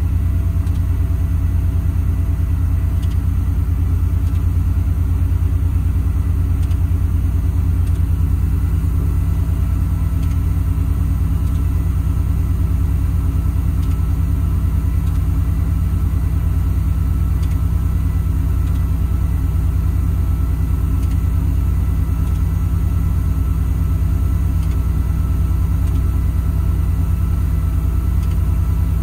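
IMT hydraulic-driven air compressor running steadily under PTO, pumping up the air tank as the pressure climbs toward its 150 psi cut-out. The truck's Cummins diesel idles beneath it.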